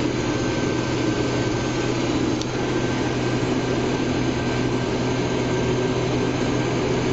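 Case IH 2388 combine running steadily while cutting wheat, heard from inside the cab: a constant machine drone with a strong low hum.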